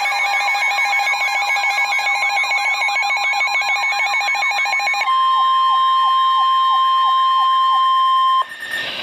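Weather radio alert: a warbling electronic alarm of rapid repeated pitch sweeps. About five seconds in it changes to NOAA Weather Radio's steady single-pitch warning alarm tone, which cuts off near the end, leaving radio hiss.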